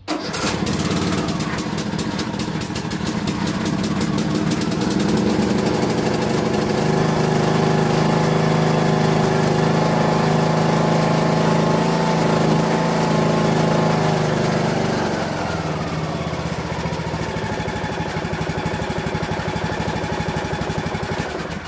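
Lawn mower engine running steadily. About fifteen seconds in, its pitch drops and it settles to a lower speed.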